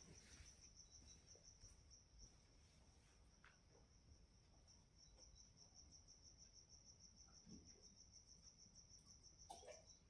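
Near silence: faint room tone with a steady, high, rapidly pulsing trill running underneath.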